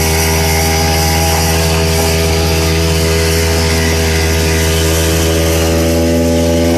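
Vintage Ski-Doo snowmobile's two-stroke engine running at a steady speed, its pitch holding constant.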